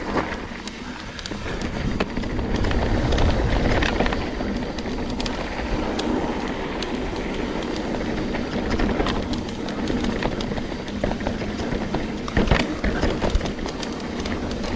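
Trek Slash 9.8 full-suspension mountain bike riding fast over a dirt and rock trail: a steady rumble of tyres on rough ground, with the chain and frame rattling and scattered sharp knocks over bumps.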